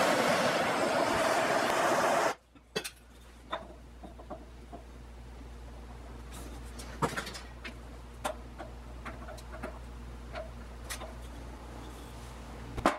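A loud, steady rushing noise for about two seconds that cuts off suddenly. Then light clicks and a few sharper knocks as a walnut foregrip is handled and fitted against a rebar rifle barrel on a workbench, over a low steady hum.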